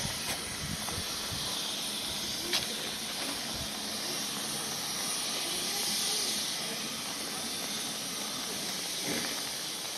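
Steam locomotive venting steam: a steady, strong hiss that swells a little midway, with one sharp click about two and a half seconds in.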